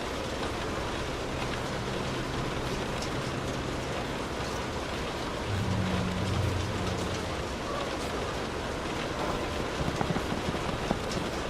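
Light rain falling steadily on a car, heard from inside the cabin. A low rumble swells briefly about halfway through.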